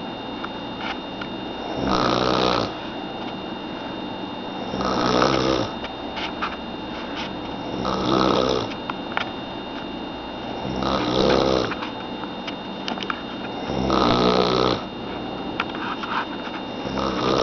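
A person snoring in a slow, regular rhythm, one rattling snore about every three seconds, six in all.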